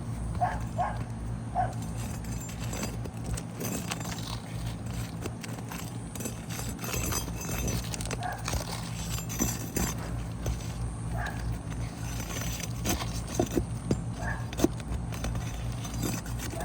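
Hand tools working on asphalt roof shingles, with scattered knocks, taps and scrapes as a wind-damaged shingle is pried up and replaced. Under them runs a steady low hum, and a few short high squeaks come through.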